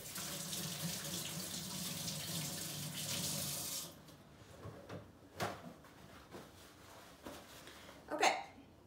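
Kitchen faucet running as hands are rinsed under it, shut off about four seconds in. A few light knocks follow, then a brief louder rustle near the end.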